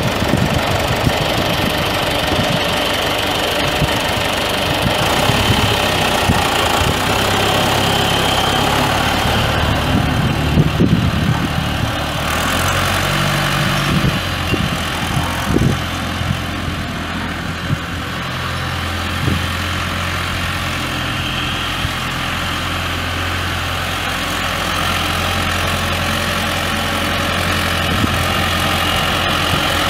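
John Deere 401B tractor's four-cylinder diesel engine running steadily, its note shifting about a third of the way in and then holding steady.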